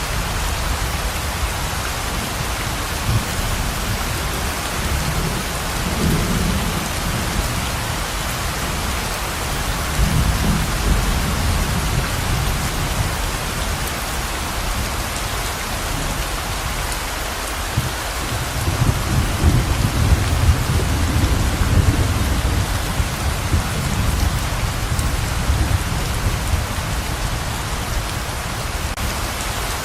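Heavy, steady pouring rain, with low rolls of thunder swelling up three times: about 6 seconds in, around 10 to 12 seconds, and longest from about 18 to 24 seconds.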